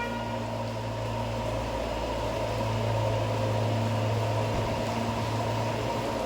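Bus engine running steadily, a low even rumble with a faint steady hum over it.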